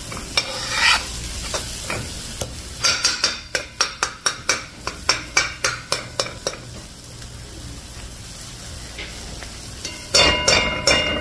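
Curry paste sizzling as it fries in oil in a large metal pot, stirred and scraped with a metal spoon: a run of quick scrapes and knocks, about three a second, from about three seconds in, and a few loud knocks near the end that set the pot ringing.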